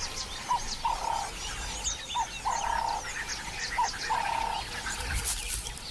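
Wildlife ambience: many small chirps from birds or insects over a repeated animal call about every second and a half, a short note followed by a longer, slightly lower one.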